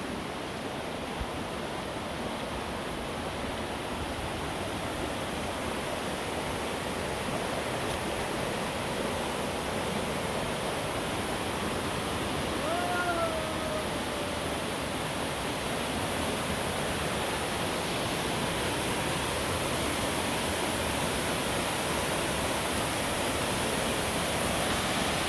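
Steady rush of water from a rain-swollen waterfall, growing slowly louder toward the end. A single short pitched call sounds about halfway through.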